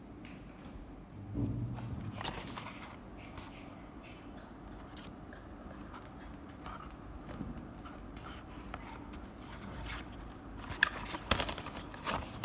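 Computer mouse being handled and clicked: scattered small clicks and scrapes, a soft thud about a second and a half in, and a quick run of sharp clicks near the end.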